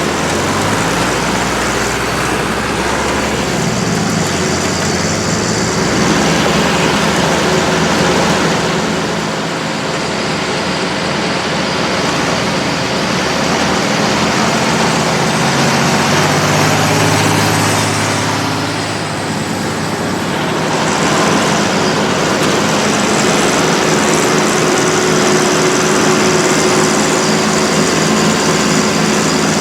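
Tractor engines and trailed maize forage harvesting machinery running steadily under load. The engine pitch slides up and down near the start and again a little past halfway.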